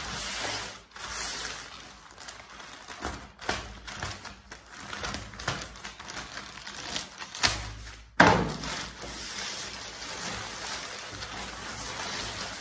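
Plastic courier mailer crinkling and tearing as it is slit open with a knife and pulled apart, with scattered taps and one sharp knock about eight seconds in.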